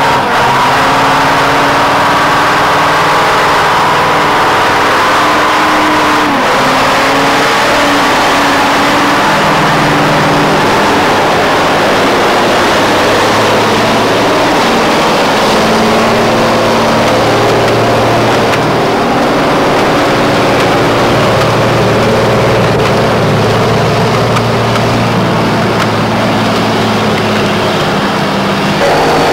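Diesel engines of heavy military trucks running and revving as they grind along a muddy track, the engine pitch rising and falling several times.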